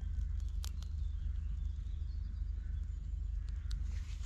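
A small twig fire smouldering in a tin, giving a few sharp crackles, over a steady low rumble, with faint birdsong.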